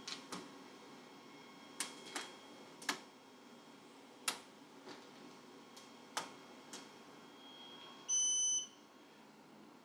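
Scattered light clicks as the key switch and controls on the front of a Creality Falcon2 Pro laser engraver are worked. Then, about eight seconds in, a single high electronic beep lasting about half a second: the engraver's power-on signal before its self-test.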